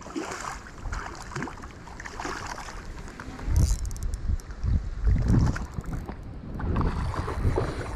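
Wind rumbling on the microphone in irregular gusts, the strongest about three and a half and five seconds in, over water splashing at the bank's edge.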